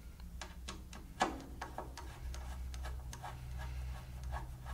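Light, irregular plastic clicks and taps as a small plastic hex-key holder is pushed and fitted onto the bandsaw's steel frame by hand, over a low steady hum.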